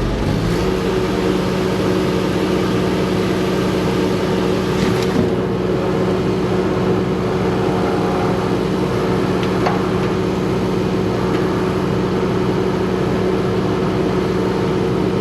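An engine runs steadily at constant speed after a brief rise in pitch right at the start.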